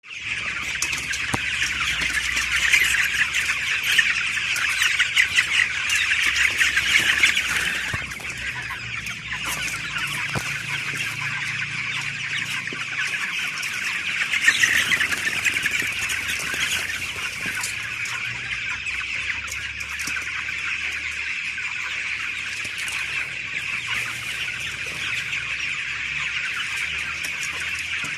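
A flock of 19-day-old chickens cheeping and peeping all at once in a dense, continuous chatter. It is louder for the first eight seconds or so, then settles to a steady level.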